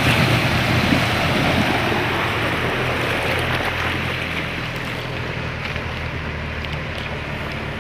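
Off-road 4x4 engine running steadily while driving through a river, with water rushing and splashing around the tyres, loudest at the start and easing a little.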